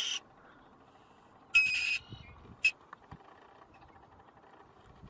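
Weasel giving shrill, squeaky squeals: a half-second call about a second and a half in and a short one a second later, with faint background between.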